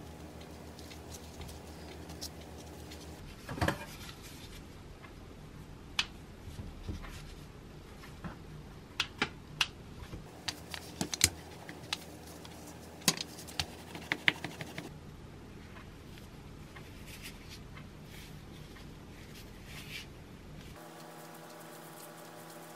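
Cooking handling sounds: a scatter of sharp taps and clicks, densest and loudest in the middle, as a wooden rolling pin flattens starch-dusted sticky rice cake dough on a wooden board. A faint steady hum lies underneath.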